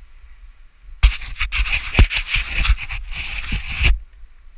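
Rough scraping and rustling close to a helmet-mounted camera, with several sharp knocks, as a mountain biker and bike push through tall grass and mud. It starts about a second in and stops suddenly after about three seconds.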